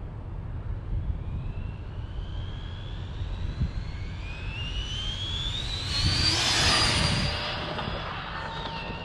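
Arrma RC car making a full-throttle speed pass: the brushless motor and drivetrain whine climbs steadily in pitch as the car accelerates, then gets loudest with tyre and gear noise as it passes about six to seven seconds in, and drops in pitch as it moves away. Wind rumbles on the microphone throughout.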